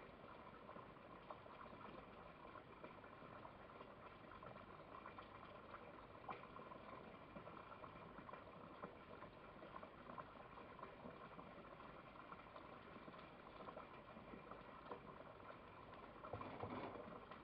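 Near silence: faint steady hiss with a few soft clicks, and a brief slightly louder rustle near the end.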